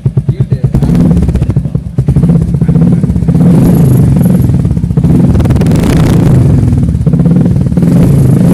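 Royal Enfield Hunter 350's single-cylinder engine through a Red Rooster aftermarket silencer: idling with an even thump for about a second, then revved several times, each rev held for a couple of seconds with short dips between.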